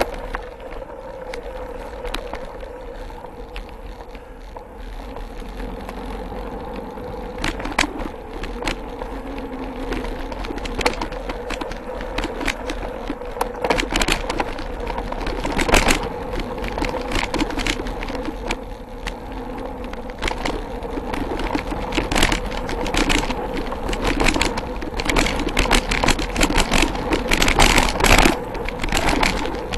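Mountain bike rolling over a dirt trail: continuous tyre and drivetrain noise with frequent rattles and clatters from the bike as it goes over bumps, the rattling coming thicker and louder in the second half.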